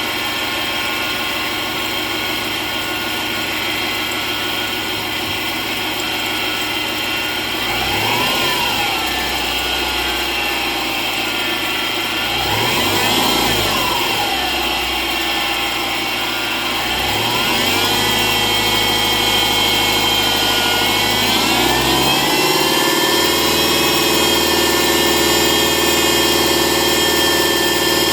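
Subaru Legacy BL5 engine running with a high-pitched metallic whine from the belt tensioner pulley, the noise typical of a failed, breaking tensioner pulley on these cars. The engine is blipped three times in the middle, then holds steady at a higher speed for the last few seconds.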